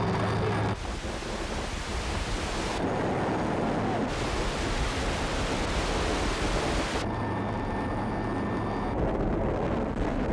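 Helicopter rotor wash buffeting the microphone with a loud, steady rush of wind noise. The helicopter's low engine hum comes through underneath about seven seconds in.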